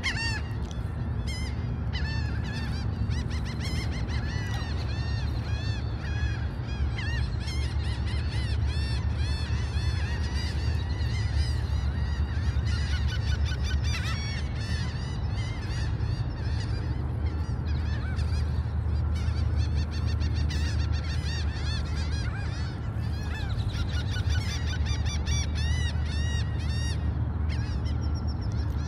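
Many gulls calling, short arched cries overlapping one another without a break, over a steady low rumble.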